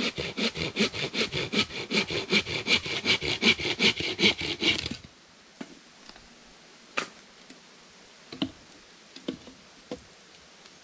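Hand saw cutting through a wooden branch in quick, even strokes, about four a second, stopping about five seconds in. A few light wooden knocks and clatters follow as the cut pieces are handled.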